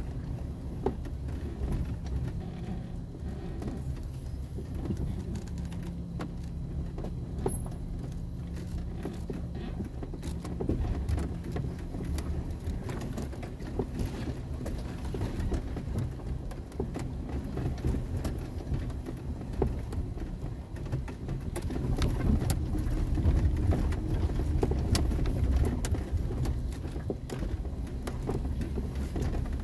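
A 4x4's engine runs low and steady at crawling speed on a rough dirt trail, heard from inside the cab, with scattered clicks and knocks throughout. The rumble grows louder for several seconds around two-thirds of the way through.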